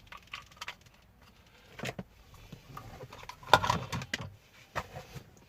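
Handling clicks and knocks of small plastic parts as a phone charging cable is plugged into a newly wired 12 V car USB port to test it; a cluster of knocks about three and a half seconds in is the loudest.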